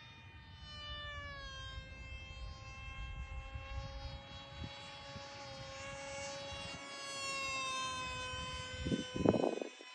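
3D-printed radio-controlled model jet flying overhead, its motor giving a steady high-pitched whine that dips slightly in pitch early on and then drifts gently as it passes. A brief loud rush of noise about nine seconds in.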